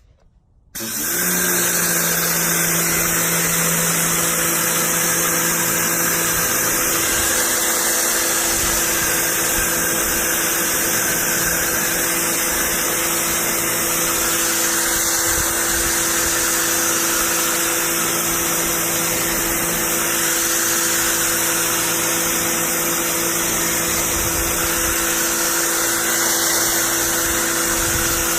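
PAXCESS 1800-watt electric pressure washer starting abruptly about a second in and running steadily: a motor-and-pump hum with a strong high hiss over it.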